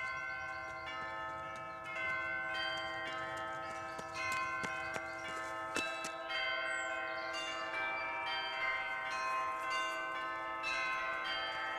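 Bells ringing: many overlapping bell tones, struck one after another and left to ring on together.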